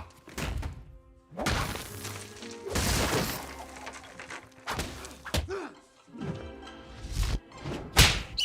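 A string of sound effects, about ten in a row: thuds, whacks and shattering crashes, some with a short falling ring, over background music.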